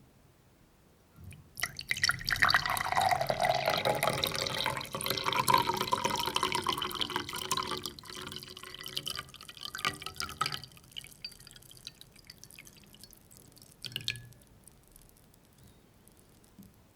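Two effervescent tablets fizzing in a glass of water: a dense crackle of bursting bubbles starts suddenly about a second and a half in, stays strong for several seconds, then thins into scattered pops and ticks as the fizzing dies down. There is one brief sharper tick near the end.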